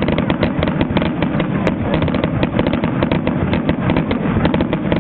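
Fireworks going off in a rapid, unbroken barrage: many sharp bangs and crackles a second, loud and continuous.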